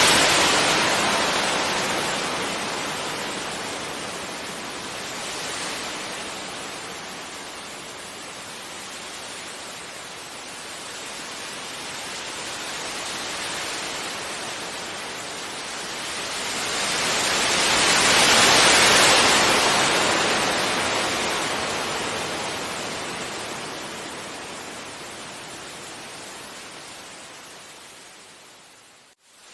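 Sea waves breaking and washing up a beach. Two big surges, one at the start and one about 18 seconds in, each fading into a long receding hiss, with smaller swells between them. Near the end the sound cuts out abruptly for a moment and then returns.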